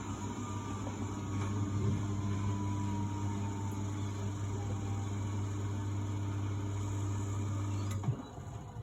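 A 1999 Miele Novotronic W828 washing machine running mid-cycle: a steady low hum with a slowly falling whine. Both cut off with a click about eight seconds in.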